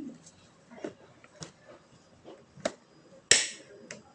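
Light clicks and knocks of bicycle parts being handled during assembly, spaced unevenly, with one sharp, loud clack about three seconds in.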